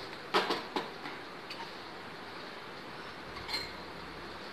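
A few light clinks of kitchen containers and a steel plate, clustered in the first second, with one more about three and a half seconds in, over faint steady room hiss.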